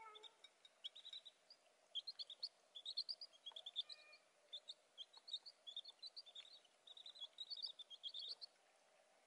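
Baby chicks peeping: many short, high cheeps in quick runs, stopping shortly before the end.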